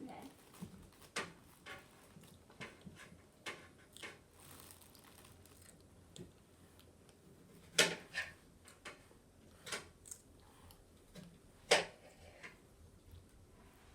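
Scattered light taps and clicks of small things being handled on a tabletop, with two louder knocks about eight and twelve seconds in.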